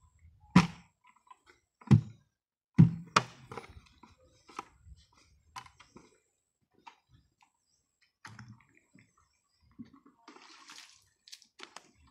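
A plastic bucket of water being lifted and carried: water sloshing with three loud knocks in the first three seconds, then lighter scattered knocks and a brief burst of noise near the end.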